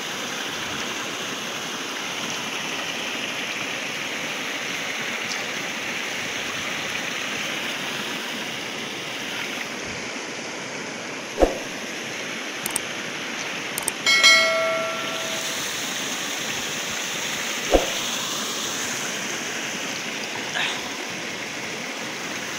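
River water flowing steadily past a fishing net, a continuous rushing. A few sharp clicks fall in the middle, and a short ringing chime sounds about fourteen seconds in.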